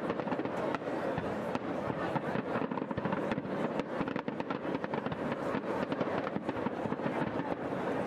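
Aerial fireworks bursting: a dense, rapid string of sharp bangs and crackles, several a second, over a steady rumbling wash.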